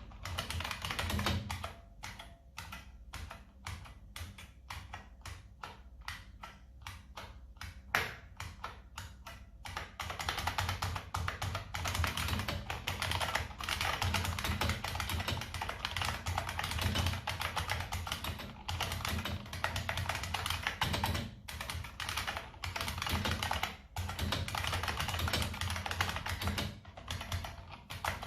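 IBM Model M keyboard's buckling spring switches clicking as it is typed on: separate keystrokes at first, then from about ten seconds in, fast continuous typing.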